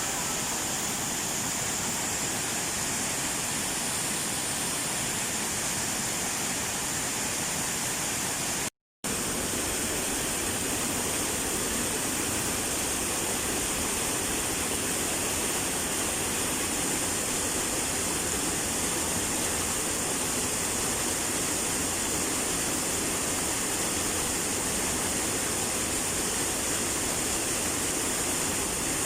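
Steady rush of flowing water, cut off completely for a moment about nine seconds in.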